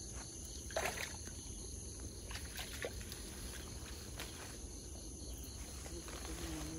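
Water sloshing and small splashes, with short clicks and rustles, as a net fish trap is handled in a shallow ditch; the sharpest sounds come about a second in and again near three seconds. Steady high insect chirring runs underneath.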